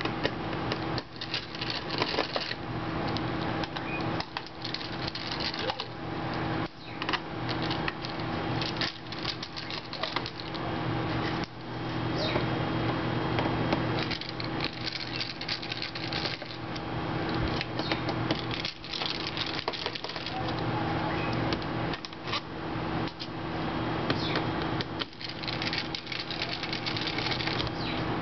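Small screwdriver backing out the tiny screws of a PowerBook G4's top case: a run of light metallic clicks, taps and scrapes as screws turn and are lifted out. A steady low hum sits under it throughout.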